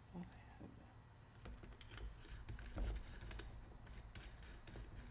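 Cordless drill's keyless chuck being turned by hand around an inserted finger drill: a faint, irregular run of small clicks and ticks.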